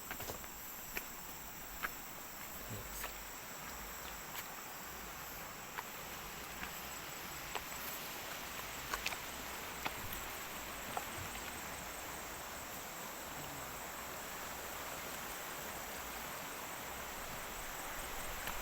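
Steady chorus of insects, an even high hiss with a faint fast pulsing, with scattered light clicks over the first half.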